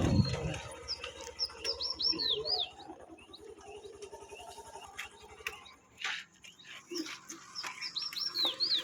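A songbird sings two short phrases of quick, high whistled notes, about six seconds apart.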